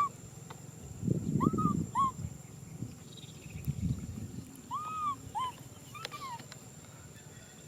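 Baby macaque crying: short, high, arched coo-like cries, mostly in pairs about half a second apart, repeated every few seconds. Bouts of low rustling noise come about a second in and again near the middle.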